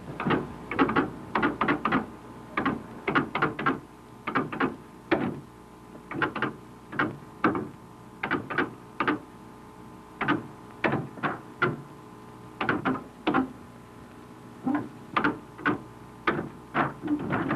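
Series of sharp clacks and knocks coming in irregular clusters of two to five, each with a short ring.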